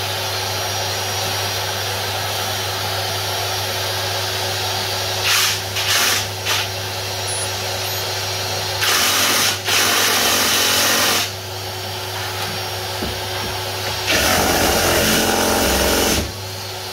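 Ryobi 18V One+ HP brushless one-handed reciprocating saw cutting into nail-embedded wood. It starts with a few short bursts, then makes two longer runs of about two seconds each, with the blade catching on an embedded nail. A steady motor hum runs underneath throughout.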